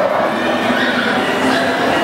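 Steady crowd chatter in a large indoor hall, many voices talking at once with no single voice standing out.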